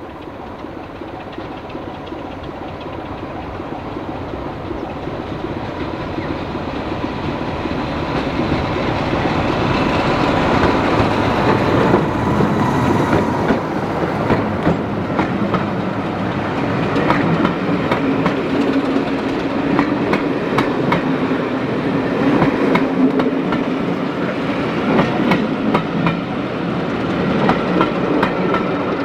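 Heritage diesel locomotive hauling a train, growing steadily louder over about the first ten seconds as it approaches, then passing close with its engine running and a rapid clatter of wheels over the rail joints.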